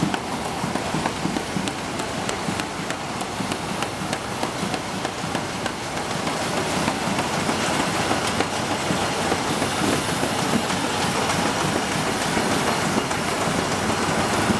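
CLC-AFG 2600B automatic folder gluer running, its belts and rollers carrying corrugated carton blanks through: steady machine noise with rapid light ticks, growing a little louder and brighter about two-thirds of the way in.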